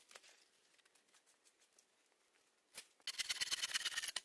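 Scattered faint ticks of twigs, then about three seconds in a dense spell of dry brush crackling and rustling as branches are handled.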